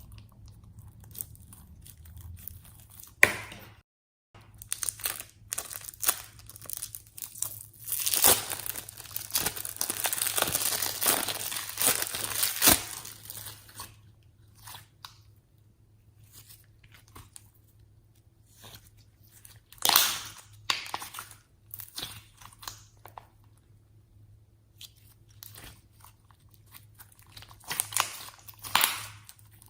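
Slime being worked by hand with makeup mixed in: bursts of crackling and crunching, densest for several seconds in the middle, with a few sharp louder snaps and quieter pauses between bursts. A faint steady hum lies underneath.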